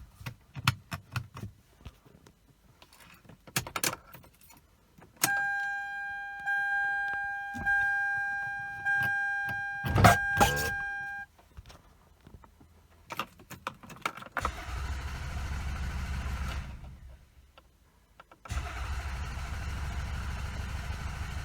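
Toyota Camry's starter cranking the engine in two long tries, about 2.5 and 3 seconds, without it catching: with the EFI fuse pulled the engine gets no fuel injection and cannot fire. Before that, keys rattle and click, and an electronic warning chime repeats about once a second for several seconds.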